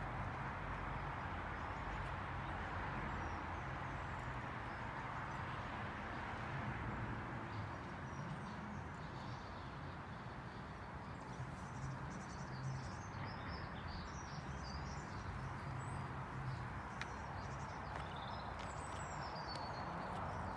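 Steady outdoor background rush, with small birds chirping faintly from about halfway through.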